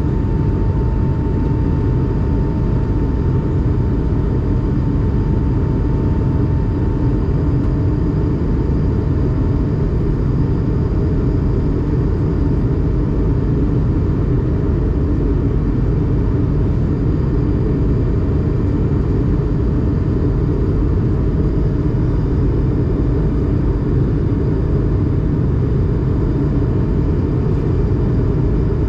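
Steady cabin noise of an Airbus A220-300 heard from a window seat: a constant low rumble from its Pratt & Whitney PW1500G geared turbofan engines and airflow, with no change in level.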